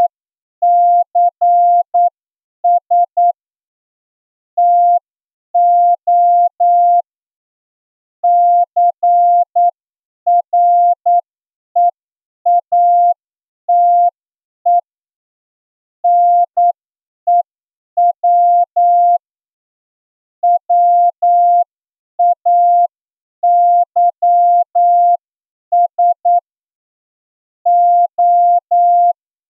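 Morse code sent as a single steady beep tone keyed on and off in dots and dashes, with pauses between letters and words: a plain-language receiving test passage at a slow exam speed of about 8 words per minute.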